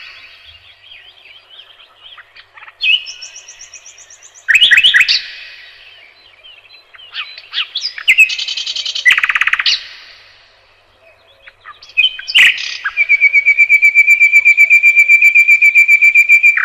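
Nightingale singing in separate phrases of rapid repeated notes and whistles, with pauses between them. In the last few seconds it holds one long, even trill of fast repeated notes.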